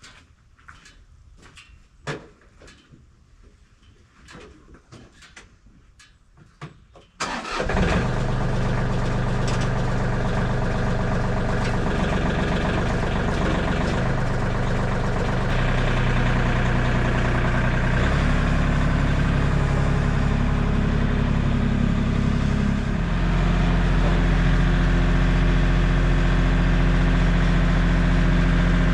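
A few light knocks, then about seven seconds in a small gas engine starts and runs steadily; its pitch and load shift in steps several times, as with a portable sawmill's engine being throttled up and working.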